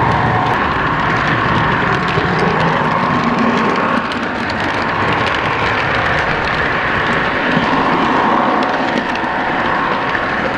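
O-gauge model train heard from a camera car riding on it: a steady rolling rattle of wheels on the track, with a constant hum and light clicks over rail joints.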